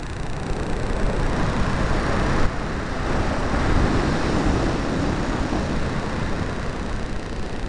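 Airflow rushing over an onboard camera's microphone on an electric RC glider in flight: a steady, rough wind noise that changes slightly about two and a half seconds in.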